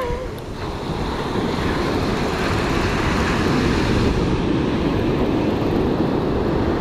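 Surf washing up a sandy beach, with wind rumbling on the microphone, and a brief sharp knock right at the start.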